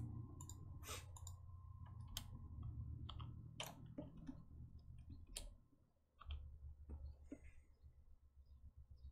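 Faint, scattered, irregular clicks of a computer mouse and keyboard as numbers are pasted and typed in, over a low steady hum.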